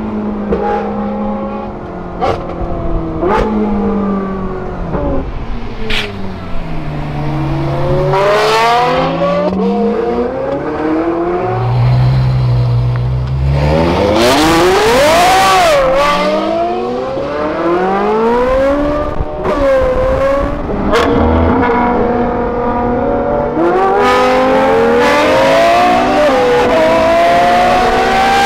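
Ferrari F12 V12 and 458 Italia V8 engines, both on aftermarket Kline Innovation exhausts, accelerating hard and revving through the gears. The pitch climbs, then drops at each shift, and there are several sharp exhaust cracks in the first half.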